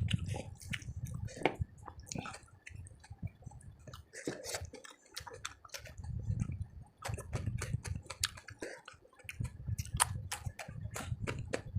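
A person chewing food close to the microphone, with many wet mouth clicks and smacks over a low rumble of chewing, pausing briefly twice.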